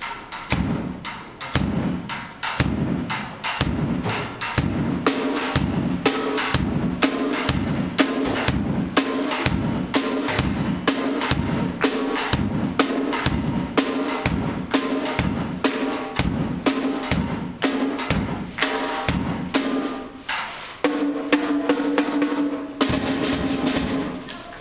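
Acoustic drum kit played in a steady beat: deep bass drum strokes at about two a second, with snare and cymbal hits between them.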